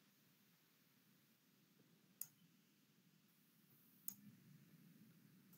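Computer mouse clicked twice, two short sharp clicks about two seconds apart, in near silence.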